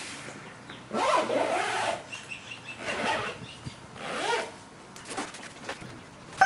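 Zipper on an EVOC padded bike travel bag being pulled along the bag to close it, in three rasping strokes, the first the longest and loudest.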